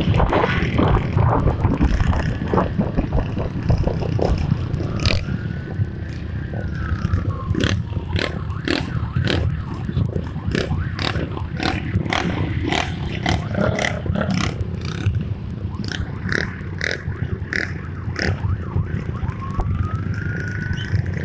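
Motorcycle engines running steadily in a group ride, with a siren wailing up and then down twice, about five seconds in and near the end, over many sharp clicks and knocks.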